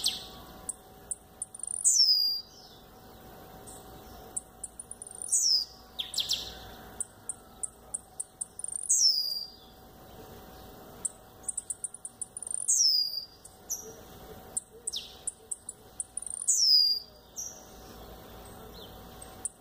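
Caged male blue-black grassquit (tiziu) singing. It gives its short song five times, about every three and a half seconds, each a quick high phrase ending in a falling whistle, with short high ticks between the songs.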